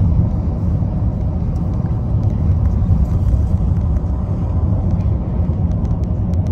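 Steady low rumble of a car cruising at constant speed on an expressway, heard from inside the cabin: road and tyre noise with the engine beneath it.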